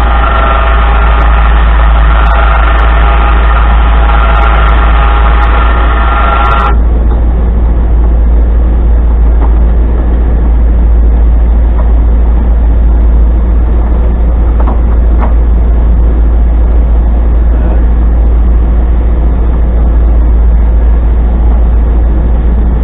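Electric winch on the 1989 Chevy Suburban's front bumper running, a steady whine that cuts off suddenly about seven seconds in, with a few clicks from the cable and pulley. Under it the truck's engine idles with a steady low rumble throughout.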